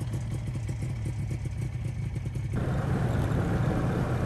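Snowmobile engine running while riding along a snow trail, a steady drone with a fast rattle over it. A little past halfway the sound changes abruptly to a louder, rushing engine-and-track noise.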